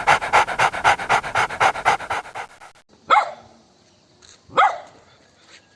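A dog panting fast, about seven breaths a second, fading out over the first two and a half seconds; then a dog gives two single barks about a second and a half apart.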